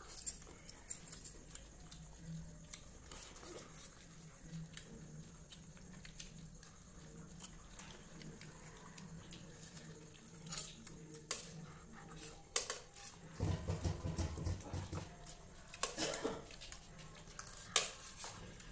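Spoons clicking and scraping on a steel plate and a plastic plate as noodles are scooped up and eaten, in scattered short clinks. There is a brief low rumble about three-quarters of the way through.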